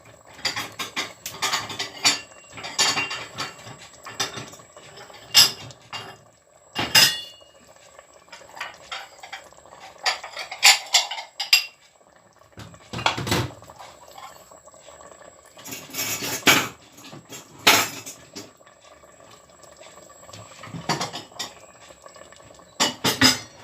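Dishes and utensils clattering in a kitchen: irregular knocks, clinks and clatters of crockery, pans and cutlery being handled, a few of them loud.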